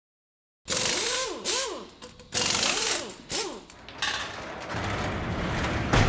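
Produced intro sound effects: four loud mechanical whirs in two pairs, each sweeping up and then down in pitch. Then a dense rumble swells and ends in a sharp hit near the end.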